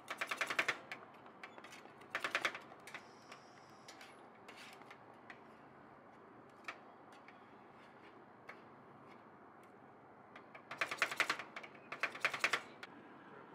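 Metal spatulas rapidly chopping and scraping on the frozen steel plate of a rolled-ice-cream griddle. They come in four short bursts of quick strokes: at the start, after about two seconds, and twice near the end, with odd single taps between.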